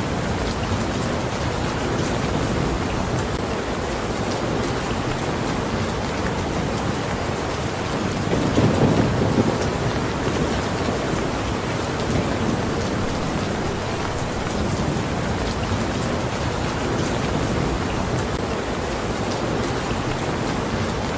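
Steady heavy rain falling, an even rushing patter. About eight seconds in, a low rumble of thunder swells for a couple of seconds and fades back under the rain.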